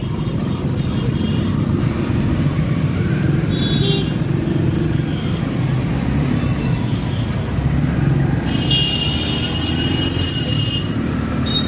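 Motorcycle riding through dense street traffic: steady engine and road rumble, with a vehicle horn sounding briefly about four seconds in and again for about two seconds near the end.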